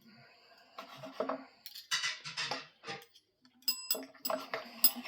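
Knife and fork scraping and clinking on a plate as a steak is cut, with a few short, high ringing tones near the end.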